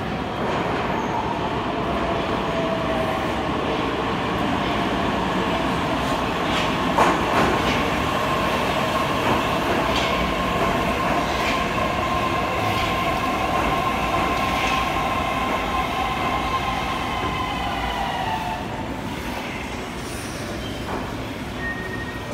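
81-722 'Yubileyny' metro train pulling into a station and slowing to a stop. A whine falls slowly in pitch as it brakes, with scattered clicks from the wheels, and the sound drops off about three-quarters of the way in. A high steady tone starts near the end.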